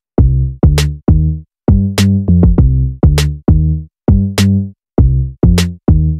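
Background electronic music: a drum-machine beat of short, deep bass notes that cut off abruptly, with a sharp clap-like hit about once a second.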